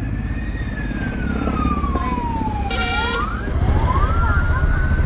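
A wailing siren slowly rising and falling in pitch, with a short pitched blast about three seconds in, over a steady low rumble that grows louder midway.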